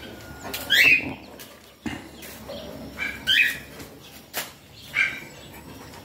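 Guinea fowl calling in short bursts about every two seconds, with a couple of sharp clicks in between.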